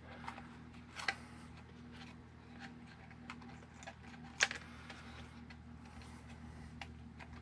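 Scattered small plastic clicks and taps of hands fitting a power switch onto an RC buggy's chassis, with a sharper click about four and a half seconds in, over a low steady hum.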